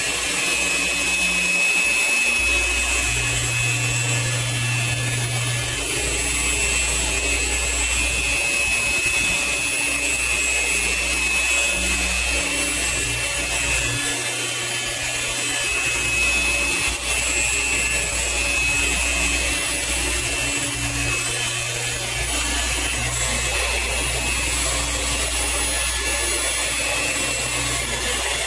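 Electric car-paint polisher (buffer) running steadily at speed setting 4.5 while polishing paint, a constant high whine over a lower hum that strengthens and fades as the pad works the panel.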